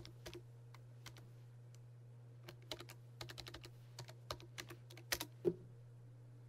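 Computer keyboard keys clicking as a shell command is typed, in uneven runs of keystrokes with a pause of about two seconds near the start. The two loudest strikes come a little after five seconds in, as the command is finished and entered.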